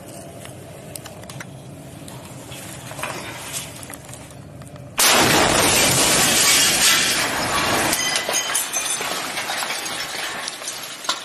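A tank shell blast right beside the microphone: a sudden, very loud explosion about five seconds in, a dense rush of noise for about three seconds, then debris and broken glass clattering and tinkling down.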